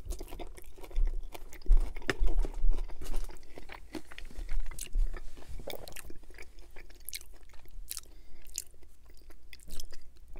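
A person chewing a mouthful of poutine: gravy-soaked fries and cheese curds. Wet mouth sounds with many sharp clicks and crunches, loudest from about one to three seconds in.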